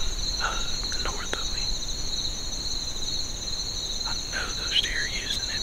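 Crickets trilling as a steady chorus in two continuous high-pitched tones, with a few faint brief sounds about half a second in and again near the end.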